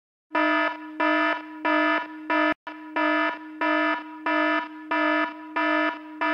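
An alarm beeping in an even, repeating pattern, about three beeps every two seconds. It breaks off for an instant about two and a half seconds in.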